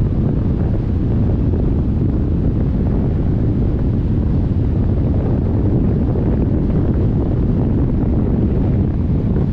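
Wind from a hang glider's flight rushing over the microphone: a steady, deep rumble with no let-up.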